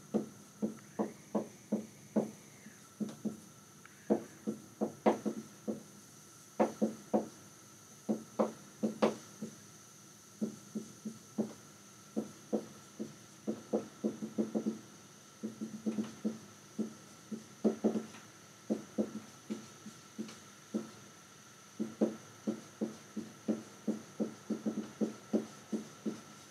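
Dry-erase marker writing on a whiteboard: quick runs of short squeaks and taps, one for each pen stroke, with brief pauses between words.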